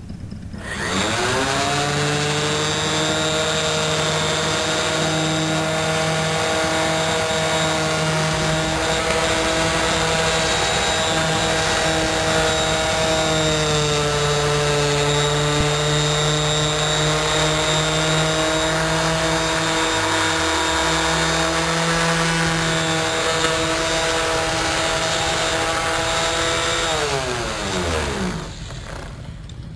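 Electric random orbital finishing sander, fitted with a polishing cloth pad, spinning up, running steadily while it buffs a chrome motorcycle pipe, then winding down near the end. Its pitch dips slightly about halfway through as it takes load.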